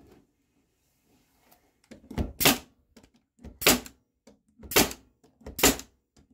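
An 18-gauge brad nailer firing four times, about once a second, starting about two seconds in, driving 5/8-inch brad nails into wooden lath trim. Each shot is a sharp crack with a light click just before it.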